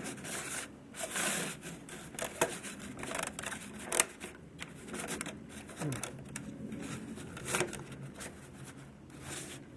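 LEGO plastic bricks and beams being worked loose by hand: scattered sharp clicks and short scraping of plastic on plastic, the sharpest click about four seconds in.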